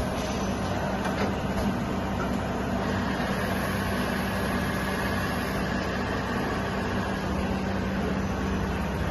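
Kasuga Q-600G CNC vertical milling machine running with a steady mechanical hum and even noise, with a faint whine rising out of it for a few seconds in the middle.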